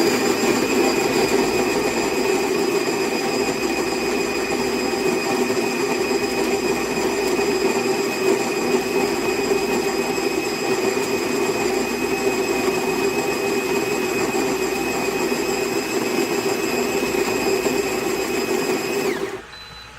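SHARDOR conical burr coffee grinder running as it grinds beans: a steady high motor whine over a dense grinding rattle. It winds down with a slight drop in pitch and cuts off about a second before the end.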